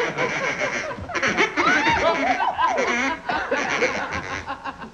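A group of people laughing, mixed with squawking quacks blown on a duck call.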